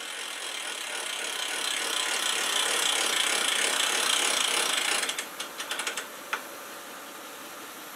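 Boat trailer hand winch ratcheting: a fast, continuous clatter of the pawl for about five seconds, slowing into separate clicks and ending with one sharp click.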